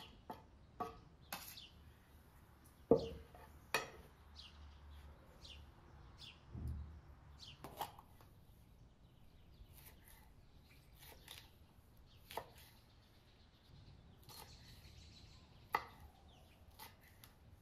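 Kitchen knife cutting a green bell pepper on a wooden cutting board: scattered, irregular knocks of the blade against the wood, with one louder knock about three seconds in.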